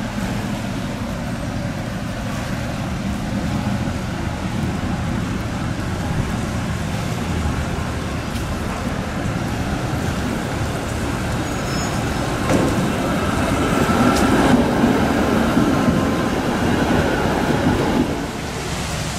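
A tram approaching on wet street-running rails over a steady hiss of wet-road traffic noise; the sound grows louder in the second half as the tram draws close and passes alongside, then drops back suddenly near the end.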